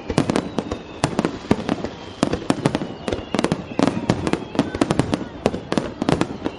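Dense barrage of aerial firework shells bursting, many sharp bangs several a second, one after another.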